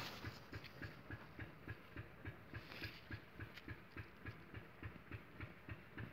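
Faint, even rhythmic thudding, about four to five beats a second, like a machine running steadily.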